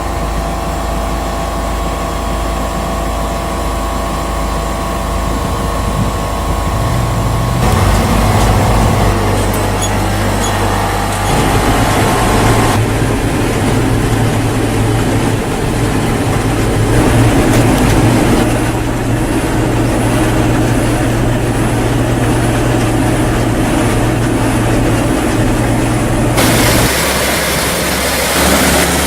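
Engine and machinery of a chili harvester running steadily, with no revving. The tone changes abruptly about 8, 13 and 26 seconds in.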